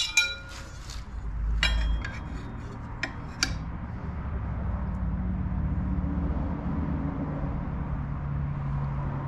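Light metal clinks and taps as a steel straightedge is set against a torque converter's driver and driven pulleys to check their alignment. There is a ringing clink at the start, then a few sharp taps in the first few seconds, followed by a low steady hum.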